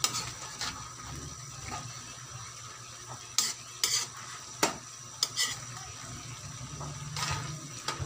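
Metal spatula scraping and clinking against a large metal wok as rice noodles are stirred and tossed, in irregular sharp clanks, over a steady sizzle of frying.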